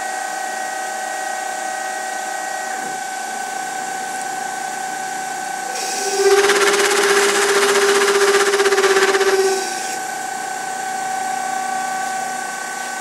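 Denford Orac CNC lathe running at 1100 RPM with a steady whine; from about six seconds in until nearly ten, the parting tool chatters as it cuts through the EN16T steel cylinder, a loud buzzing drone over a rough grinding noise, which stops suddenly when the cut ends.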